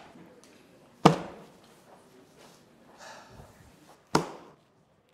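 Two sharp thuds about three seconds apart, each dying away quickly in a small room, with a faint shuffle between them.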